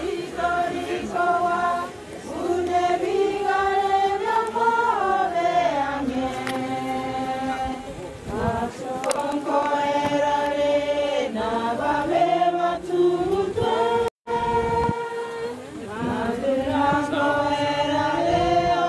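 A group of voices singing together in slow, long-held notes that slide from one pitch to the next. The sound drops out for a moment about fourteen seconds in.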